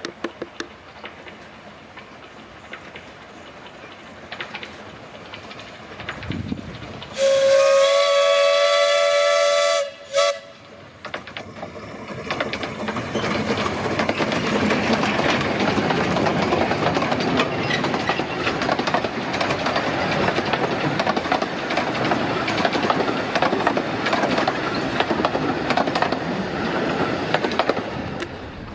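Narrow-gauge steam locomotive Maid Marian, a Hunslet 0-4-0 saddle tank, sounds its steam whistle in one long blast of about three seconds. Then it draws up and passes close by with its coaches, and the running noise of wheels on the rails builds from about twelve seconds in and stays loud as the train goes by.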